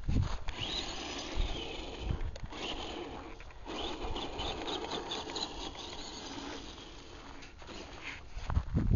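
Footsteps crunching on sandy gravel, with rubbing and knocks from the handheld camera and a few thumps, the heaviest near the end.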